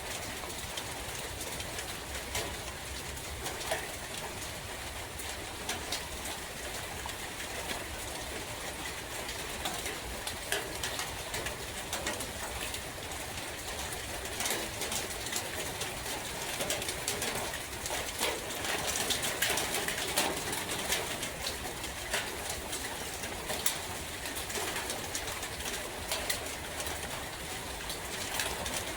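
Steady rain falling in a forest, with many sharp drops pattering, and a bird calling now and then.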